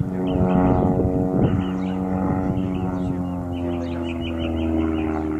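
Small propeller airplane flying overhead: a steady engine-and-propeller drone whose pitch slowly falls as the plane passes and draws away.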